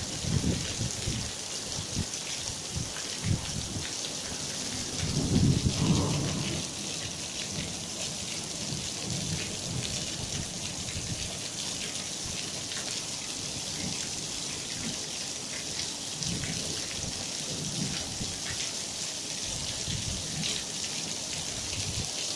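Hail and heavy rain falling on a tiled patio, plants and a pool: a steady hiss, with low rumbles underneath, the loudest about five seconds in.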